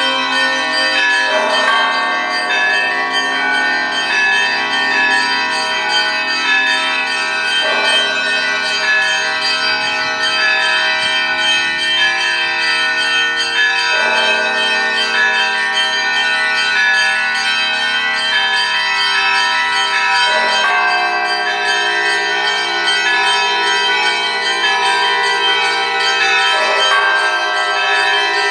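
Russian Orthodox church bells being rung by hand: smaller bells ring continuously in a dense, overlapping peal, while a deeper bell is struck about every six and a half seconds.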